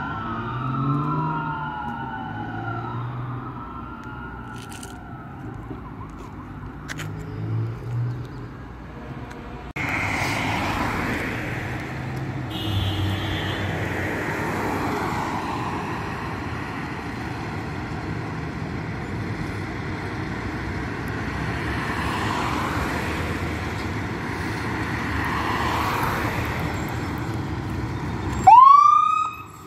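Fire engine siren wailing as the truck moves away, with the sweeps fading over the first few seconds. Then a fire engine's engine runs steadily as it pulls out of the station. Near the end its siren winds up with a loud, sharply rising whoop.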